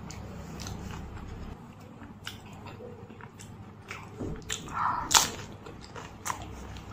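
Close-up eating sounds of pani puri: wet chewing and small crunches, with a sharp, loud crunch about five seconds in as a filled, crisp puri shell is bitten.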